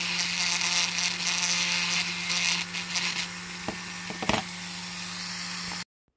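Small handheld pen-style rotary tool running steadily with a fine bit against the bare diecast metal of a toy truck cab, cleaning leftover residue out of the seams after paint stripping. It cuts off suddenly near the end.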